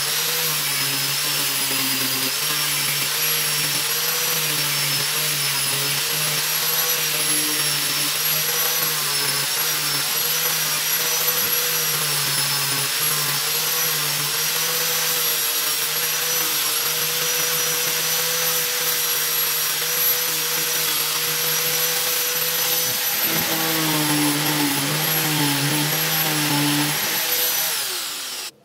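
Electric angle grinder with a sanding pad running steadily with a high whine. Near the end its pitch falls as it winds down.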